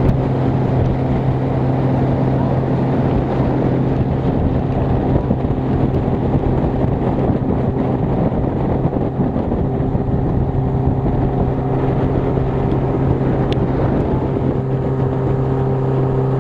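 Yamaha 115 four-stroke outboard motor running at a steady cruising speed, a constant hum that holds one pitch, over the rush of water and wind past the moving boat.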